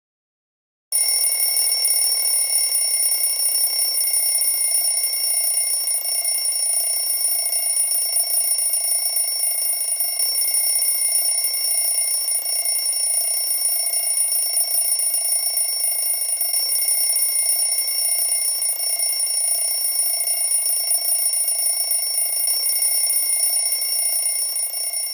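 A loud, steady, high-pitched ringing of several tones over a rougher buzz lower down. It starts abruptly about a second in and holds without a break, fading just after the end.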